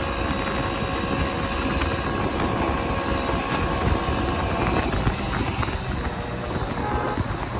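Motorcycle riding at speed: steady wind buffeting the handlebar-mounted microphone over the engine's running hum and road noise, with the steady engine tones thinning out about five seconds in.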